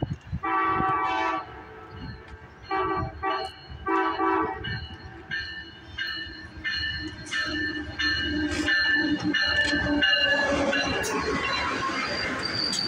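Amtrak Siemens Charger diesel locomotive sounding its horn in a series of blasts as it approaches, the first one long. From about ten seconds in, the noise of the locomotive and its passenger cars passing close by takes over.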